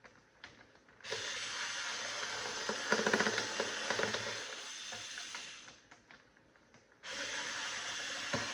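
A screwdriver driving screws back into a box fan's housing: a dense, fast ratcheting noise that starts suddenly about a second in and runs several seconds, then stops, and starts again near the end.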